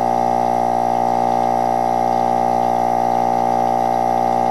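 GM Delco hermetic air-conditioner compressor running with its sealed shell cut open: a steady, loud, even hum with a strong high tone over it.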